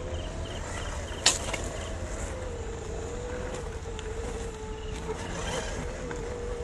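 Electric motor and gear drive of a WPL C24 1/12-scale RC Jeep crawler whining steadily as it crawls over rocks, its pitch wavering slightly with load. A single sharp knock comes about a second in.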